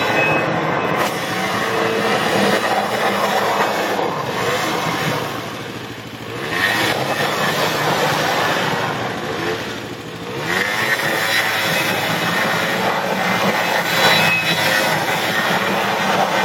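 Small youth ATV engine revving as it circles, easing off twice, about six and ten seconds in, then picking up again.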